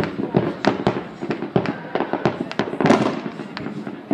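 Fireworks going off in a rapid, irregular string of sharp bangs, several a second, with the loudest burst about three seconds in.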